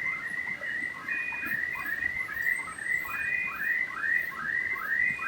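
Paper roll slitting cross-cutting machine running, with a regular squeak about twice a second, each one rising then falling in pitch, in time with the machine's cutting cycle.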